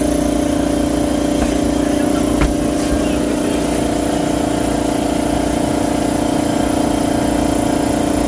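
Steady machine hum with a constant low drone, and a single short click about two and a half seconds in.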